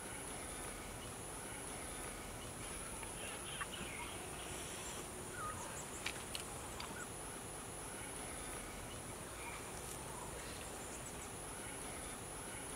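Rainforest ambience: a steady high insect whine with a few short gaps, faint scattered bird calls, and a few sharp clicks near the middle.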